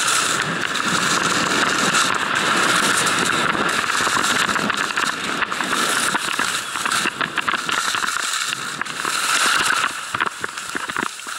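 Skis hissing and scraping over groomed, hard-packed snow on a fast downhill run, with wind rushing over the camera microphone and many small crackles from the ski edges. The noise fades in the last second or so.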